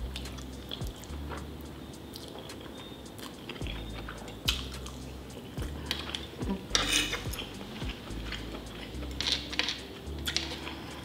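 Close-miked eating: a person chewing a mouthful of black bean noodles (jajangmyeon), with scattered sharp clicks of cutlery, several clustered around the middle and near the end.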